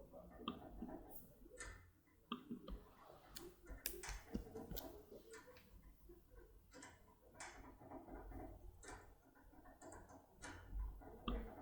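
Faint, irregular metallic clicks and ticks from a foil-impression pick being tensioned and rocked up and down inside an ABUS VELA 1000 pin-tumbler cylinder.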